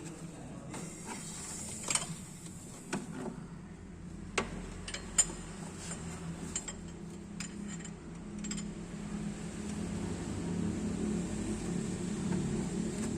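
Scattered sharp metallic clicks and clinks of a spanner working on a car engine during valve-clearance adjustment, over a steady low hum that grows a little louder in the second half.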